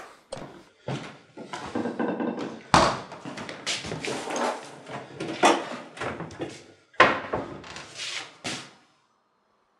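Kitchen cupboard doors and drawers being opened and shut, with rummaging clatter and several sharp knocks, the loudest about three seconds in and near seven seconds. It stops abruptly about a second before the end.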